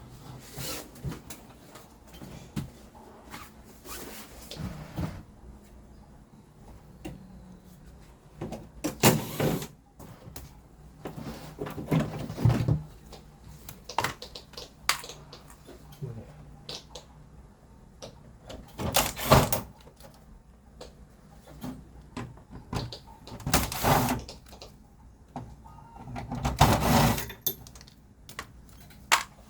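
Casing parts of a Samsung Hauzen stand air conditioner being handled during disassembly: scattered clicks and knocks, with about five louder short clatters spread through.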